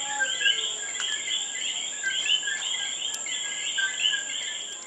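Night chorus of insects and coquí frogs: a steady high-pitched insect trill under many overlapping, repeated two-note chirps.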